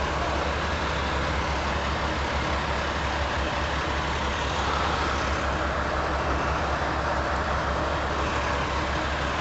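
Steady low hum with an even hiss over it, the constant machinery background of a repair shop.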